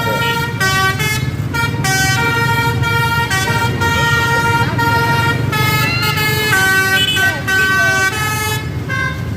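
Bus 'telolet' multi-tone air horn playing a tune: a run of sustained horn notes that change pitch every half second or so, over a constant low engine rumble.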